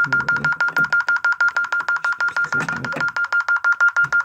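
Intruder alarm system beeping rapidly and steadily during its exit-delay countdown after being set, about eight short beeps a second on one high pitch.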